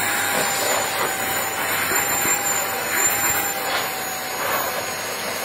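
AirX1 pipe-drying hot-air blower running, a steady rush of air with a faint motor whine, driving water out of the end of a long flexible hose.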